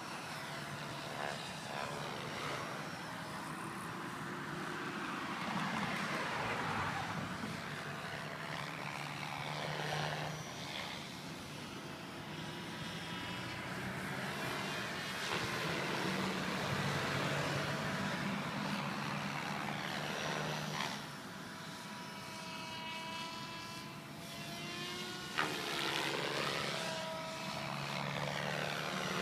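Radio-controlled model helicopter flying: a steady motor and rotor whine that rises and falls in pitch as it moves about and passes by.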